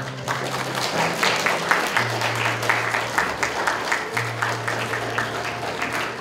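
Audience applauding, a dense patter of clapping that begins just after the start and thins near the end, over background music with sustained low notes.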